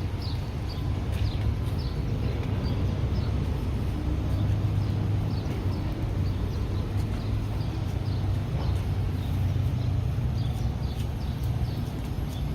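Outdoor street ambience heard while walking: a steady low rumble, with many short, high, falling chirps scattered throughout.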